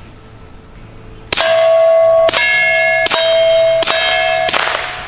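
Five suppressed 9mm pistol shots in an unhurried string, each hitting a steel FBI Q target that rings with a clear bell-like clang. The ring carries on between shots and dies away after the last hit.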